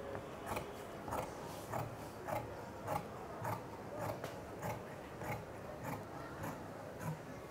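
Large tailor's shears cutting through khaki bee-suit fabric on a table, each closing of the blades a short crisp snip, about a dozen in an even rhythm of a little under two a second.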